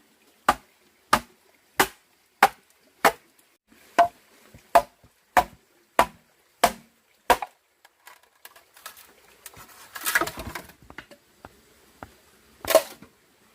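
A blade chopping into wood with about eleven steady, evenly spaced strikes, roughly one and a half a second. After a pause there is a second of noisy scraping and crackling, then one more strike near the end.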